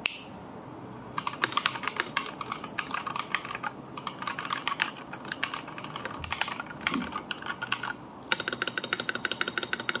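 Fast typing on an AKKO 3098S mechanical keyboard fitted with TTC Speed Silver linear switches: a dense clatter of keystrokes starting about a second in, pausing briefly near eight seconds, then resuming faster.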